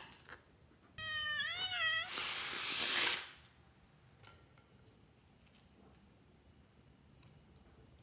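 A rubber balloon letting out its air: a wavering squeal through the stretched neck for about a second, then a loud rush of escaping air that cuts off after about another second. Faint small clicks of handling follow.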